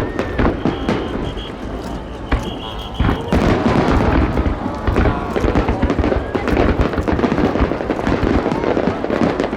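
Fireworks display: a rapid run of bangs and crackles, louder and denser from about three seconds in.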